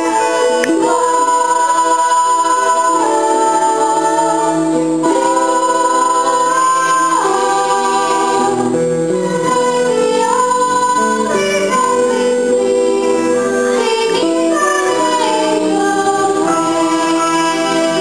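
A stage-musical song sung live by a young cast over instrumental accompaniment, with long held notes that change every second or two.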